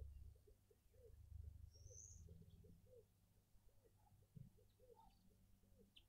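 Burchell's coucal's bubbling call, faint: a long run of low hooting notes, about three a second. A brief high chirp from a small bird comes about two seconds in.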